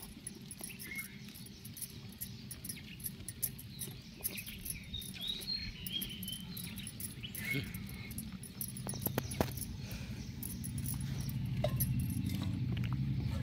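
A goat being milked by hand: quick squirts of milk hitting a steel pot in an irregular patter. A low hum grows louder over the second half.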